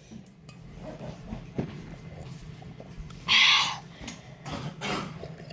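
A person gulping down a cup of fizzy soda in one go, with faint swallowing sounds and one short, loud, breathy gasp about three seconds in.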